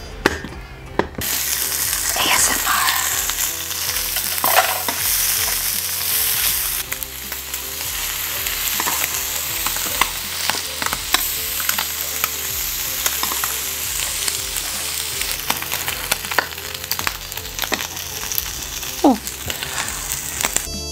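Strips of Spam frying in a little oil in a nonstick pan: a steady sizzle with scattered pops and crackles. It starts about a second in and is loudest for the first several seconds.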